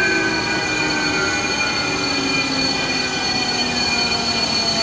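Jet fighter engines (Sukhoi) whining steadily, a dense whine of high tones with some tones slowly falling in pitch.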